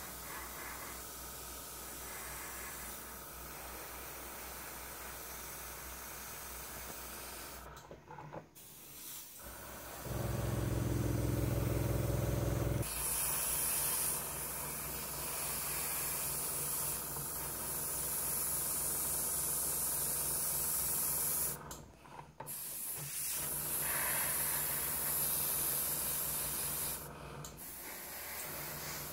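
Airbrush hissing as it sprays paint, louder and sharper in the second half. A low hum comes in briefly about ten seconds in, and the sound cuts out for a moment three times.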